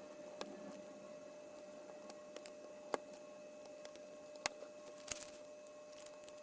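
Plastic Lego pieces being handled and snapped together: scattered sharp clicks, a few louder than the rest, over a faint steady hum.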